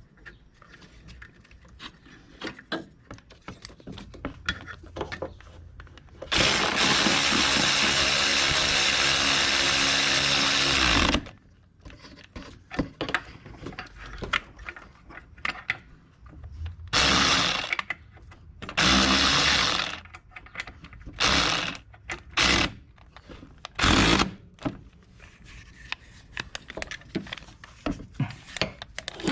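A handheld power tool runs steadily for about five seconds, then in four or five shorter bursts, with scattered clicks and clinks of tools and metal parts in between.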